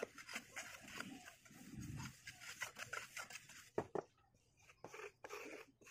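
Steel mason's trowel scraping and tapping on wet cement mortar in a slab mould: a run of short, faint scrapes and knocks.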